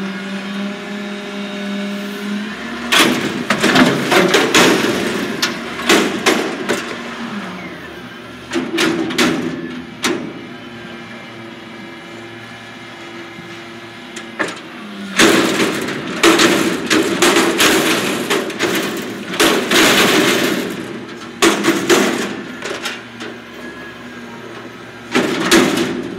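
Front-loader garbage truck dumping a container raised over its cab: the engine runs steadily between two long stretches of loud clattering and banging, a few seconds in and again past the middle, with a shorter burst of bangs near the end.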